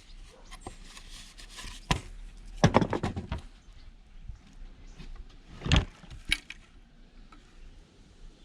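Plastic speaker casing and parts being handled during a teardown: scattered knocks and clatter, loudest in a short burst about three seconds in, with a few single knocks later.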